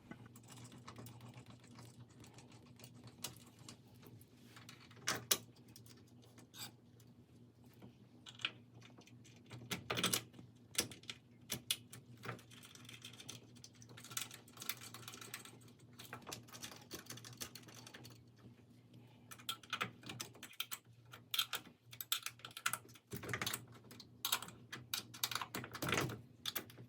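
Irregular small clicks and knocks of metal hardware and tools as a metal bracket is bolted onto a wooden loom support. A few louder knocks come early, and the clicking grows busier in the last third. A faint steady hum sits underneath.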